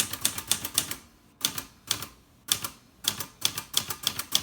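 1965 Olivetti Lettera 32 manual portable typewriter being typed on, a line of numbers and symbols struck as quick runs of sharp key clacks, about six or seven a second, broken by two short pauses.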